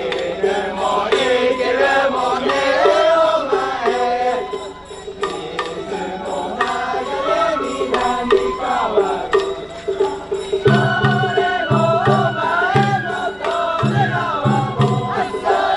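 Japanese festival float music: a wavering melody line over a steady held note, with chant-like voices. From about eleven seconds in, low drum beats come roughly once a second.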